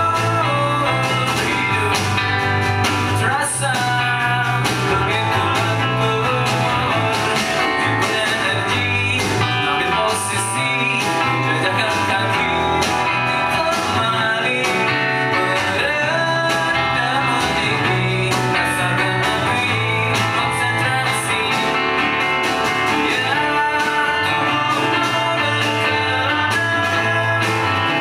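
A live rock band playing: guitars over bass and drums, with a voice singing at times.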